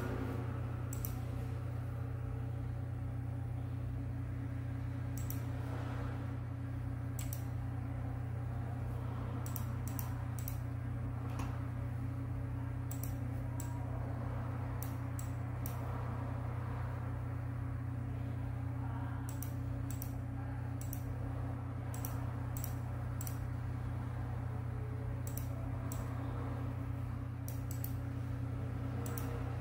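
Computer mouse clicking irregularly, often in quick pairs, about two dozen clicks in all, over a steady low hum.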